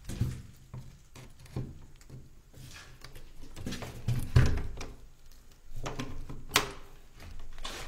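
Irregular footsteps and dull thumps of someone moving through a small room and handling an old wooden door, with the loudest thump about halfway and a single sharp knock near the end.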